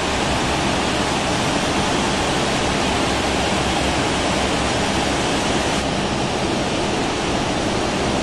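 Steady rushing noise of a Lufthansa Airbus A380's four Rolls-Royce Trent 900 jet engines running at low power as the aircraft taxis in close by.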